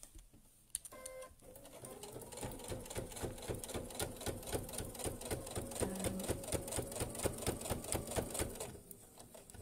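Brother electric sewing machine top-stitching through layered fabric, doubled wadding and fruit netting: the motor runs up and the needle strokes in a fast, even rhythm, then slows and stops shortly before the end.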